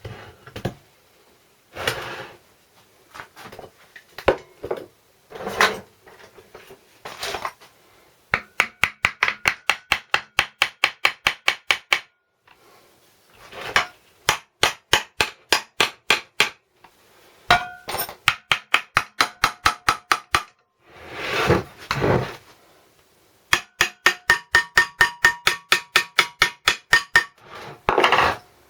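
Hand tools working on the metal of a Briggs & Stratton small engine being dismantled: scattered single knocks and scrapes, and twice a fast, even run of light metallic taps at about eight a second, each with a faint ring.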